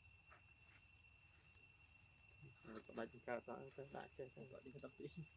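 Faint, steady high-pitched drone of insects chirring in the forest. A faint voice talks in the middle.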